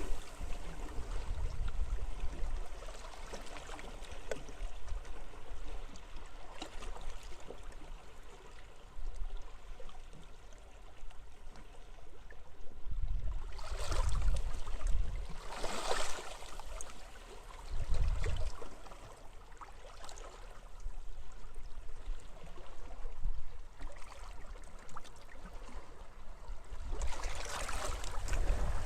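Small waves washing and trickling on a beach, with gusts of wind. Louder surges come about halfway through and again near the end.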